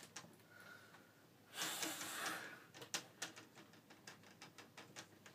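Small plastic clicks and snaps as a laptop's screen bezel is pried loose from its clips by hand. About a second and a half in there is a short breathy exhale.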